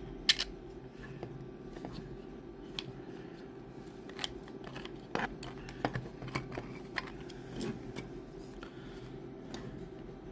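Irregular light clicks and taps of hard 3D-printed plastic parts being handled and fitted together, the sharpest about a third of a second in, over a steady low hum.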